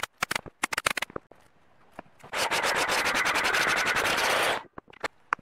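A quick run of sharp clicks and taps, then a power tool cutting into a block of pine for about two seconds with a fast, even chatter, stopping abruptly.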